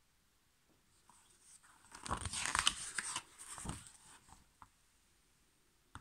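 A picture-book page being turned by hand: paper rustling and crinkling for about three seconds, loudest in the middle, followed by a couple of small clicks.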